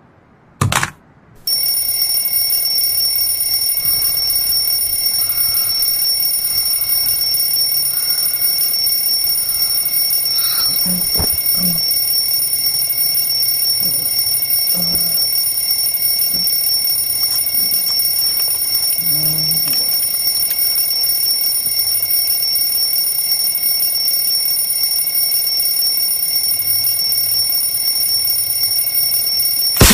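Alarm clock ringing without a break, a steady high-pitched ring that starts just after a click and cuts off suddenly at the end.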